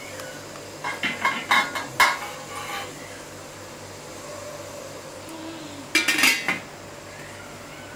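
Cookware clattering as a glass bowl of cake batter is set into a preheated pot: a run of clinks and knocks about a second in, then a louder clatter near six seconds, over a steady low hum.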